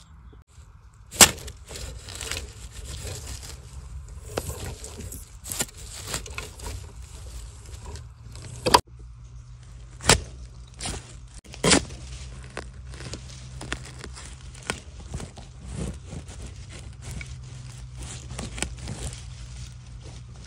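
Dry bamboo leaf litter and twigs crackling and rustling as they are disturbed, with several sharp snaps, over a low steady rumble.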